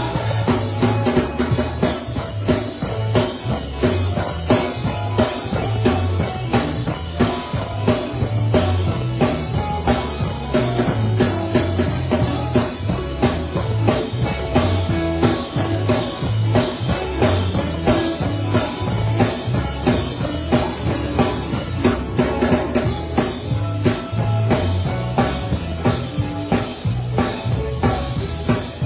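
Live gospel band playing an instrumental groove driven by a drum kit, with bass drum, snare and rimshots, over a steady low bass part.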